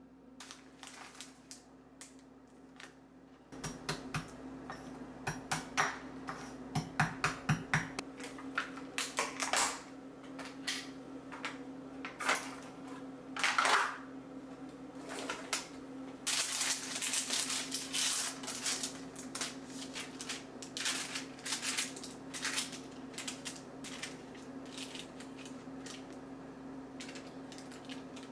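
Kitchen utensils and dishes clinking and knocking: a string of irregular taps and clatters, busier at times, over a steady low hum.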